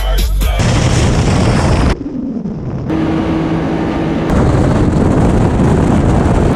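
A vehicle driving with wind buffeting hard on the microphone, with abrupt jumps in level between clips.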